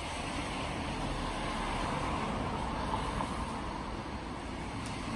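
Steady background noise, a continuous low rumble with hiss and no distinct events; no calls from the dove squabs.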